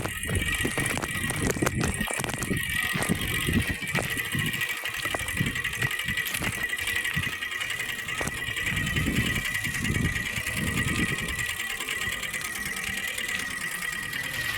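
Plastic strip fixed to a bicycle wheel slapping the spokes as it turns, making a steady rapid buzz meant to sound like a motorbike engine.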